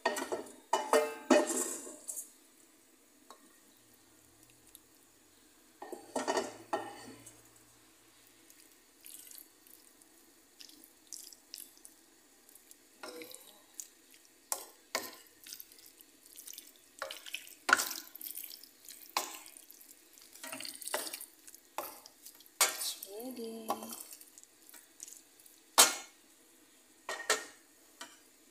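Wooden spoon stirring beef and vegetables in a pan, scraping and knocking against the pan in irregular bursts with pauses between.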